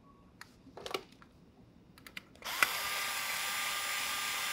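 A few faint handling clicks, then about two and a half seconds in a cordless drill/driver starts and runs steadily, driving a 10 mm M3 screw into a 3D-printed plastic blaster housing.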